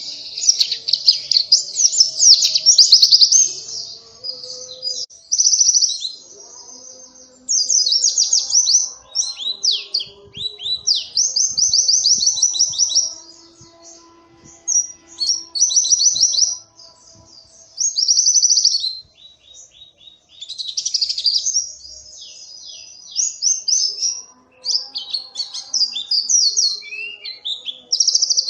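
White-eye (pleci) singing a fast, high twittering song in rapid trills, delivered in bursts of one to two seconds separated by short pauses.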